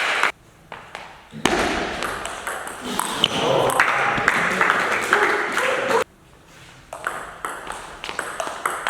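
Table tennis rally: the celluloid ball clicking sharply off the bats and the table, with short quiet gaps between the points.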